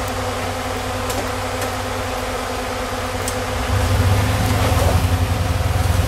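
Engine of a modified Toyota Land Cruiser rock crawler running at low revs as it crawls over rock, getting louder and throatier about four seconds in as it is given more throttle.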